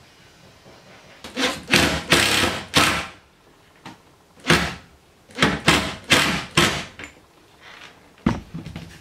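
Makita cordless impact driver driving screws through clear corrugated polycarbonate sheet into a wooden frame, in two clusters of short, loud bursts and one more near the end.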